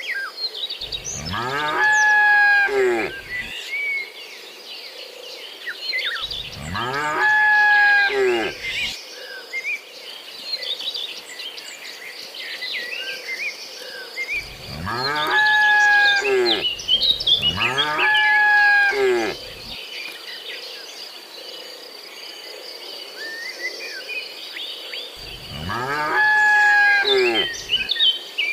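Cattle mooing: five long moos, each lasting two to three seconds, with a high chirping of birds and insects in the gaps.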